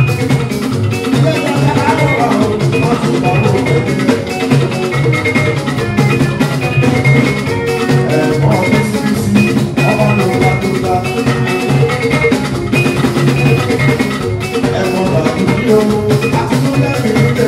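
Live band playing dance music with a steady beat: drums and percussion over bass guitar and electric guitar.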